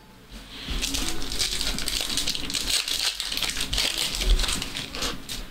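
Foil trading-card pack wrappers crinkling and tearing as packs are ripped open, a dense crackle of fine irregular ticks that starts about half a second in and dies away near the end.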